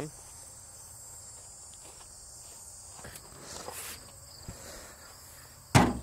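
Faint steady chirring of crickets, and near the end one loud sudden clunk as the Jeep's steel hood is swung open.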